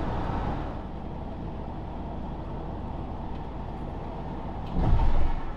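Road and engine noise of a Hobby motorhome driving, heard from inside the cab, easing slightly about a second in. About five seconds in comes a brief, loud low rumble.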